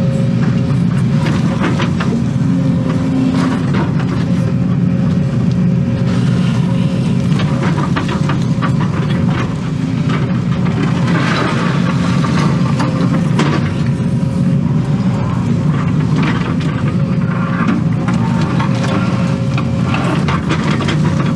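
Case excavator's diesel engine running steadily under digging load, heard from inside the cab, with a steady whine over it. Irregular clanks and scrapes come as the bucket digs through dirt and rocks.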